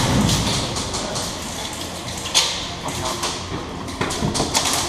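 Indoor airsoft gunfight: scattered sharp snaps and taps of airsoft rifle shots and BBs striking, with one loud crack about two and a half seconds in and a quick run of shots near the end.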